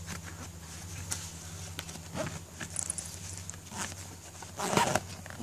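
A bungee cargo net being stuffed into a nylon motorcycle tail-bag pocket: fabric rustling with small clicks and scrapes, with one louder rustle near the end, over a steady low hum.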